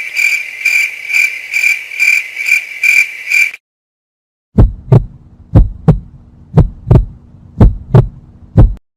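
Two sound effects one after the other. First a high, pulsing chirp-like call, about two pulses a second, that stops suddenly. Then, after a short silence, a heartbeat-like double thump over a low hum, repeating about once a second.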